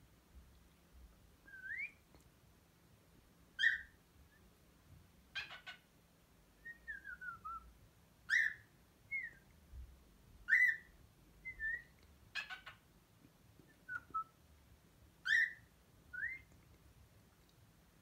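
Cockatiel whistling and calling: scattered short whistles, louder sharp chirps every couple of seconds, a short falling run of notes, and two brief raspy trills.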